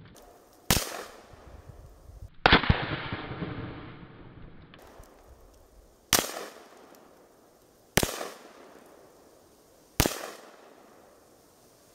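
AK-47 rifle firing five single 7.62×39 mm shots, spaced roughly two seconds apart. The second shot is the loudest, with a longer trailing tail.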